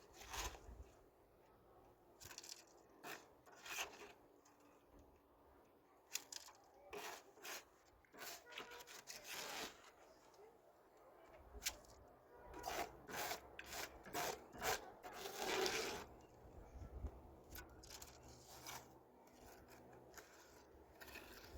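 Irregular scraping and rubbing strokes, coming in short runs with pauses between them and a longer stroke near the end.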